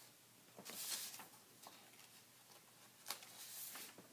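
Near silence: quiet room tone with a couple of faint, brief rustles, one about a second in and a weaker one about three seconds in.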